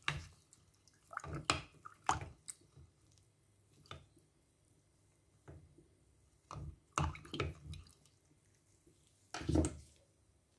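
Wooden spatula handle stirring water and pineapple peels in a glass jar to dissolve syrup: short bursts of sloshing and knocks, irregular and a second or more apart.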